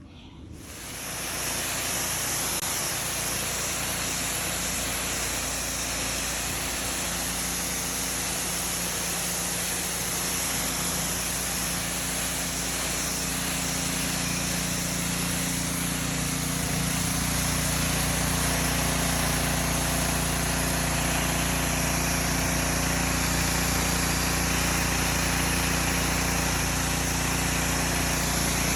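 An engine running steadily, growing a little louder about halfway through.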